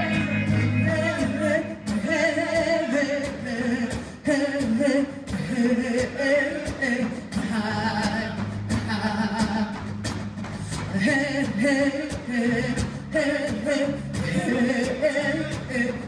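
Live band music with singing over acoustic guitar, bass and a steady drum beat of about two to three strikes a second, from a drum kit and Dene hand drums.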